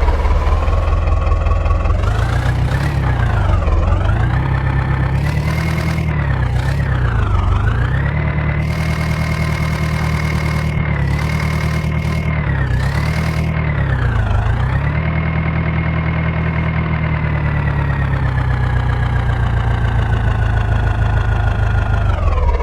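Diesel engine of a heavy machine revving up and dropping back again and again, held at high speed between the dips. Over the last few seconds it eases off slowly, then falls back to a lower speed near the end.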